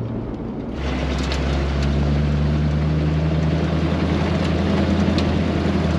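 Steady low drone of a truck cab for under a second, then an off-road Jeep's engine running steadily as it drives a dirt trail, with a constant rushing of tyre and wind noise.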